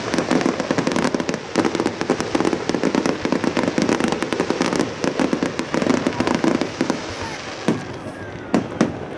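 Fireworks display: a dense barrage of crackling and popping from bursting shells and comet streams, thinning in the last couple of seconds to a few separate sharp bangs.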